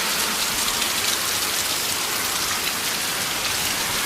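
Heavy rain falling steadily, an even hiss of drops pattering on surfaces.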